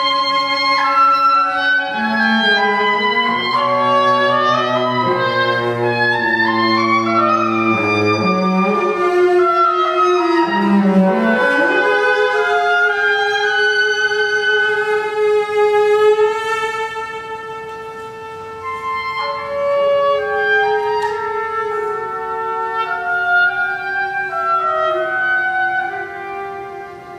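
Oboe and cello playing a duet, each holding and moving between sustained notes. The cello's low notes drop out about eight seconds in, and the music turns softer after about sixteen seconds.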